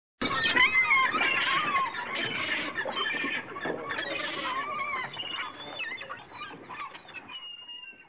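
A flock of gulls calling, many overlapping squealing cries at once. The calls are loudest and densest in the first two seconds and thin out toward the end.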